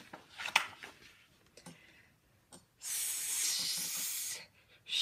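Paper rustle of a picture-book page being turned, then a woman's long "shhh" hush held for about a second and a half, beginning about three seconds in.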